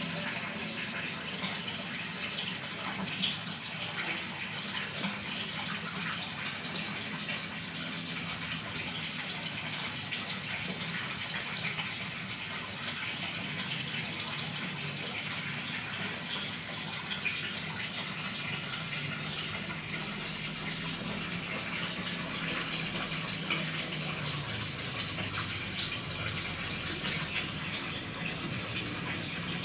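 Aquarium water running and splashing steadily, like a tap left on, with a low hum underneath.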